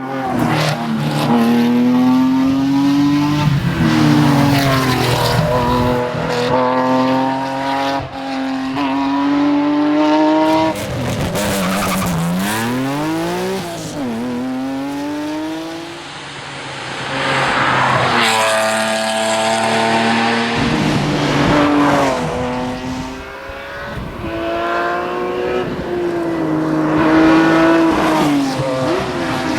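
Porsche 996 911 GT3's flat-six engine revving hard under full throttle through a run of gear changes: its pitch climbs, then drops back at each shift. Around the middle the pitch falls and rises sharply in quick sweeps as the engine is worked down through the gears.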